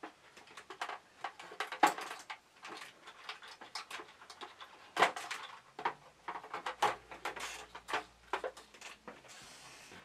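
Sealed lead-acid standby batteries being disconnected and lifted out of a fire alarm control panel's plastic housing: a string of small clicks, knocks and handling noises, with the loudest knock about five seconds in and a short rustle near the end.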